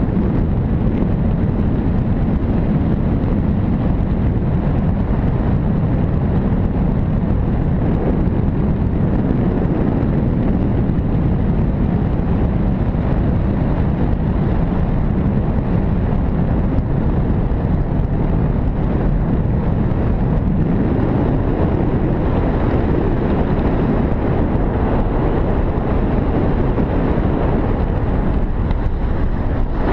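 Steady low rumble of wind buffeting a handheld action camera's microphone in flight under a tandem paraglider, with no engine or voices.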